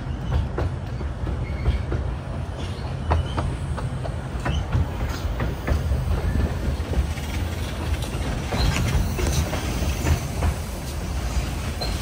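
Miniature 15-inch-gauge passenger train of the Romney, Hythe & Dymchurch Railway running along the track: a steady low rumble of the carriage, with irregular clicks and knocks from the wheels on the rails.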